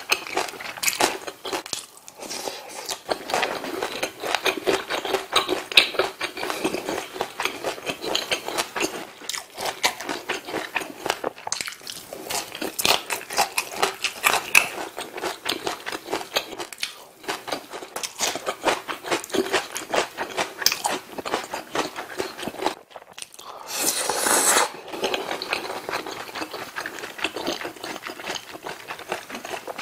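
Close-miked eating with the mouth open: steady wet chewing, crunching and smacking of rice and Korean side dishes. About three-quarters through comes a short breathy rush lasting about a second.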